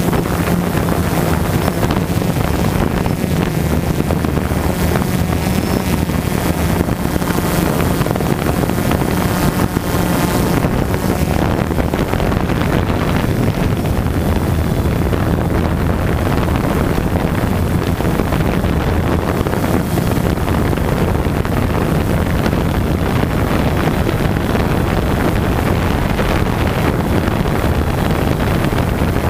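DJI Phantom 2 quadcopter's propellers and brushless motors buzzing steadily in flight, picked up by the GoPro riding on the drone, with wind rushing over its microphone.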